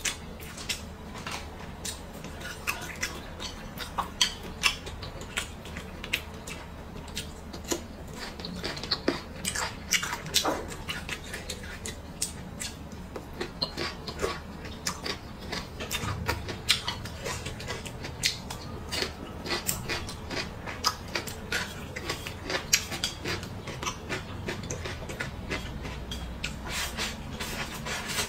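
Close-miked eating sounds: a person chewing and biting into food, with many small irregular crunches and wet mouth clicks.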